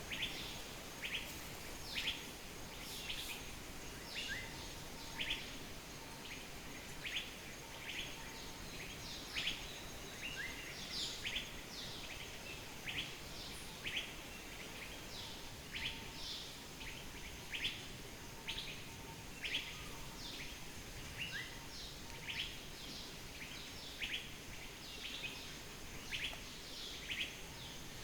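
Birds calling with short, sharp chirps, about one or two a second throughout, over a steady background rush of noise.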